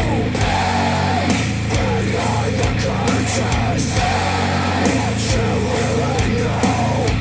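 Heavy rock song with sung vocals over a steady beat, played back through Wharfedale Denton 80th bookshelf speakers driven by a Cambridge AXA35 integrated amplifier.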